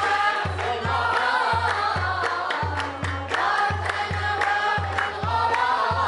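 A group of men's and women's voices singing a sacred song together over a low drum beat of about two strokes a second.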